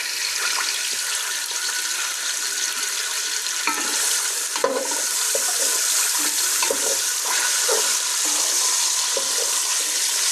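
Chopped onion and garlic sizzling in hot oil in a pan while being stirred. The sizzle grows a little louder about four seconds in, with a sharp knock of the utensil against the pan near the middle.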